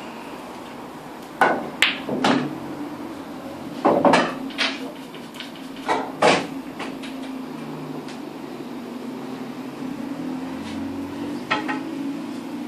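Pool shot on a pub pool table: the cue tip clicks against the cue ball about a second and a half in, and a ball is potted. A string of sharp clacks follows over the next few seconds as balls hit each other, the cushions and the pocket, with a few more knocks near the end.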